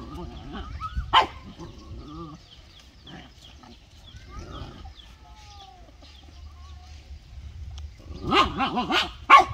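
Dogs play-fighting: a single sharp bark about a second in, softer growling and yelping over the first couple of seconds, then a quick run of several barks near the end.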